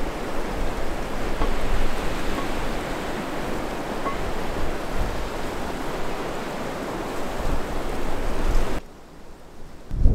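Strong wind, about 50 km/h, rushing through the trees, with gusts rumbling on the microphone. The rush cuts off abruptly about nine seconds in.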